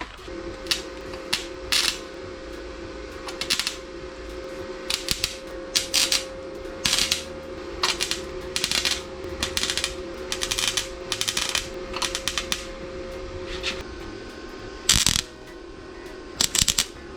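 Semi-automatic (MIG) welder laying short tack welds: a string of brief crackling bursts, each well under a second, starting and stopping irregularly. A steady hum sits underneath.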